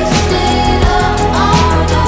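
Background music with a steady beat and held synth tones, with a rising sweep at the start.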